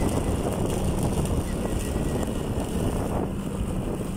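Motorcycle engine running at a steady road speed, with wind rushing over the microphone.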